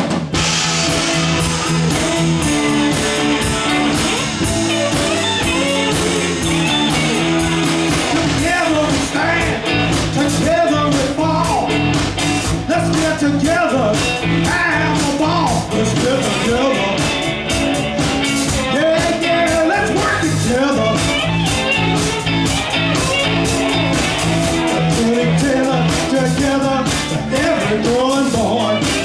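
Live rock and blues band playing with electric guitars, bass guitar and drum kit, all coming in together at once. A melody line with sliding, bent notes enters about nine seconds in over the steady beat.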